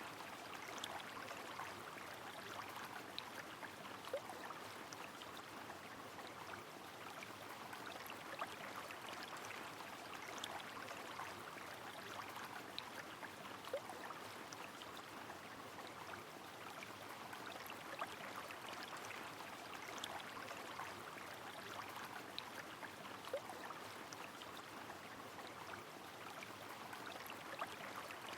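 A river flowing steadily in the rain: a continuous rushing hiss of running water, dotted with sharp drips and patters of raindrops, and three brief water plinks spaced about nine seconds apart.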